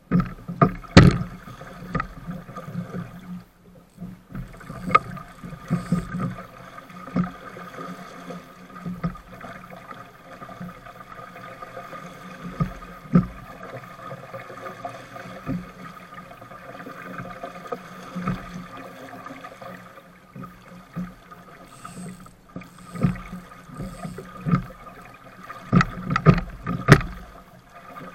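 Water rushing along and slapping against a 420 sailing dinghy's hull as it sails through chop, with sharp knocks and thumps every few seconds as the hull meets waves, loudest about a second in and in a cluster near the end.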